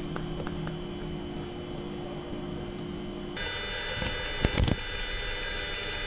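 Paperback book being handled and its pages turned, with a short cluster of soft knocks and clicks about four and a half seconds in, over a steady low hum.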